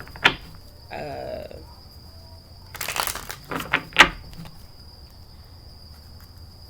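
A few sharp knocks and taps of objects being handled, the loudest about four seconds in, over a faint steady high whine.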